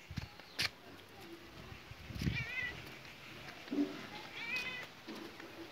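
Domestic cat meowing twice, short wavering calls about two seconds apart, with a sharp click about half a second in.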